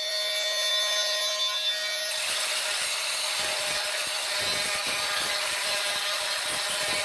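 Oscillating multi-tool with a diamond-grit grout-removal blade scraping old grout out of the joints between floor tiles: a steady high buzz with gritty scraping, which gets rougher about two seconds in as the blade bites harder.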